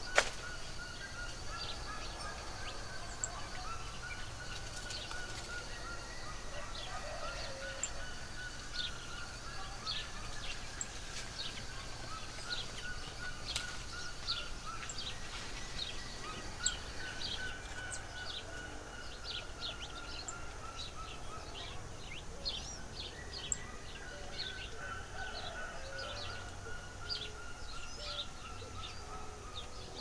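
Wild birds calling: many short, high chirps, several a second, over fainter drawn-out tones that slowly fall and come back every few seconds. A single sharp click comes right at the start.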